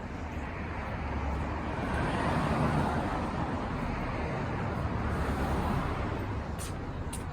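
A car passing on the street, its road noise swelling to a peak about two to three seconds in and then easing off.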